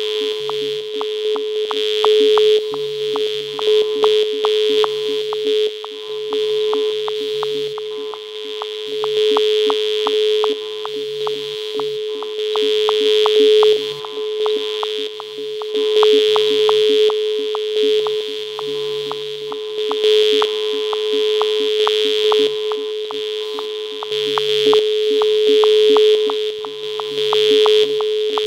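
Background music: an upbeat electronic swing instrumental with a steady beat and a sustained synthesizer tone.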